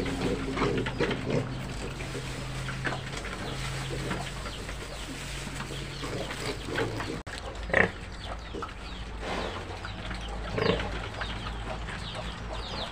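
A litter of newly weaned piglets eating dry pre-starter feed from a trough: steady crunching and snuffling in the feed, with a couple of short, louder grunts or squeals about two-thirds of the way through. They are eating hungrily.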